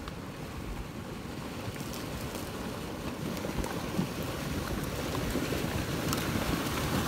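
Flash-flood debris front, a mass of logs and branches shoved along by muddy water down a dry wash, giving a steady low rumble with a few scattered cracks of wood, slowly growing louder as it advances.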